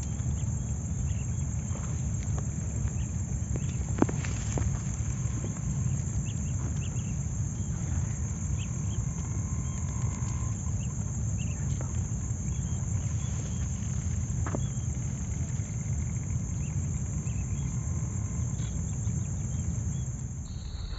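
Outdoor marsh ambience: a steady high-pitched hum over a low rumble, with a few faint short chirps and one sharp click about four seconds in.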